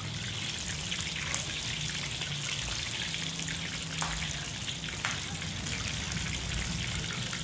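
Chicken pieces deep-frying in hot oil in a wok on their return to the oil to crisp the skin. The oil makes a steady sizzle with a few sharp crackles.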